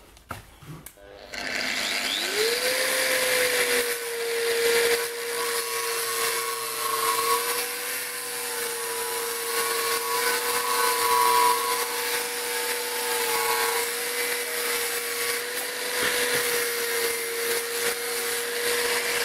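An angle grinder with a cut-off disc spins up about a second in, then cuts through a threaded steel anchor rod. The motor's steady whine runs under the grinding noise of the cut.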